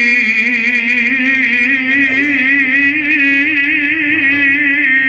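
A male qari's voice sung into a microphone, holding one long note in melodic Quran recitation. The note carries a fast, trembling ornament and rises a little in pitch midway.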